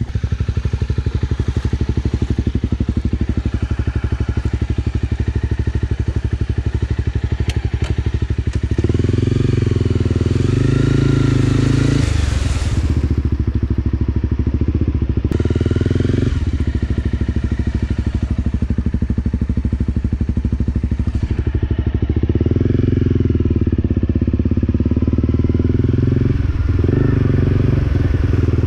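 Honda CRF250L's single-cylinder four-stroke engine running steadily at low speed, then louder under throttle from about nine seconds in, its pitch rising and falling several times as the bike is ridden.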